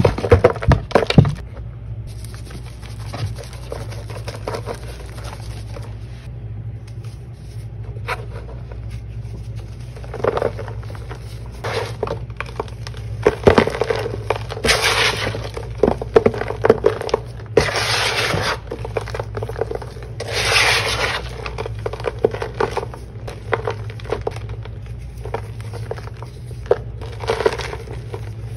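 Dried Ajax and Tydbol cleaning-powder slab being crushed by hand: a few sharp snaps near the start, then gritty crunching and crumbling in irregular bursts as the chunks are squeezed into powder. A steady low hum runs underneath.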